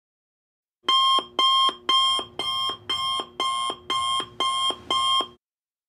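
Electronic timer alarm going off at the end of a countdown: nine quick beeps, about two a second, each stepping down from a higher to a lower note, then stopping.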